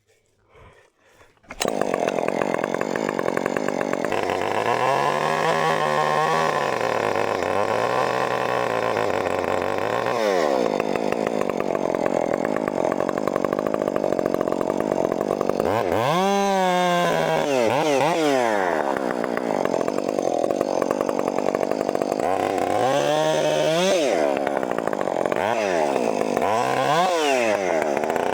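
Gas chainsaw running at high revs, cutting in suddenly about a second and a half in; its engine speed drops and climbs again several times.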